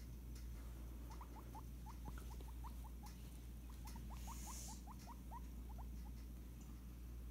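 Guinea pig making soft, short rising squeaks, several a second, in two runs with a brief pause in the middle.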